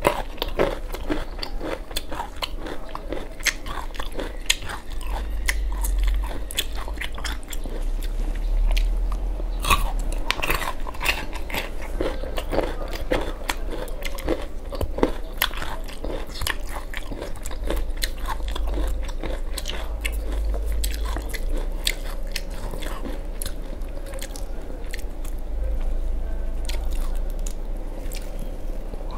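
Close-miked crisp crunching bites and chewing of single-clove garlic, in many irregular sharp crunches, with the crackle of its papery skin being peeled between bites.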